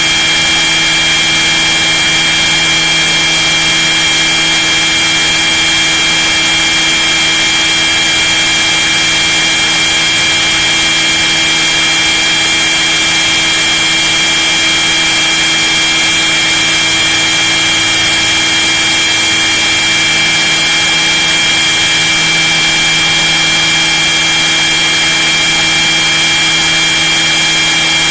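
Radio-controlled scale model helicopter's motor and rotor drive running steadily in flight, heard from inside the fuselage: a loud, even whine of several high steady tones over a dense hiss.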